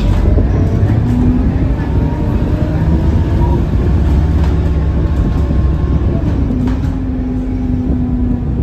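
Scania K230UB single-decker city bus under way, heard from inside the cabin: its rear-mounted nine-litre five-cylinder diesel engine and drivetrain running steadily with road noise, faint whining tones coming and going, and occasional light rattles.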